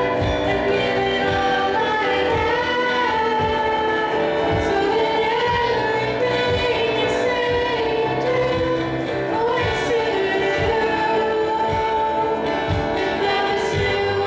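Live youth rock band: a girl singing lead into a microphone over electric guitar, keyboard and drum kit, with drum beats throughout and a cymbal crash every few seconds.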